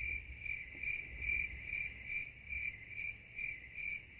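A cricket chirping: one high, steady trill that swells about twice a second.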